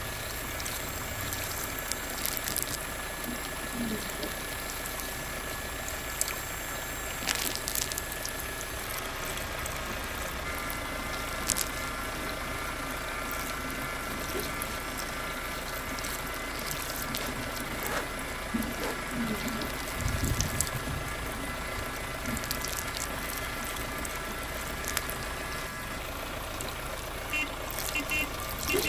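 Small electric motor whining steadily as it turns the drum of a homemade toy concrete mixer, with a few scattered clicks.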